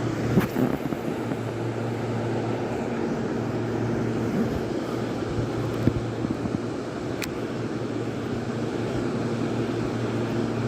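A steady, even machine drone, like a motor or engine running, with a few faint clicks.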